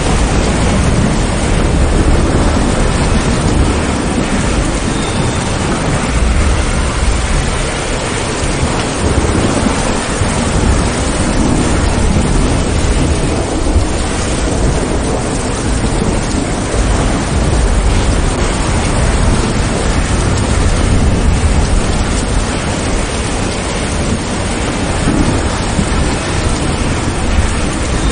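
Steady rain falling, with low thunder rumbling underneath that swells and eases several times.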